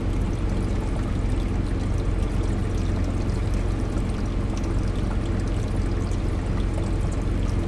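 Compact ice maker's water pump running, filling the ice tray with a steady pouring of water over a low motor hum.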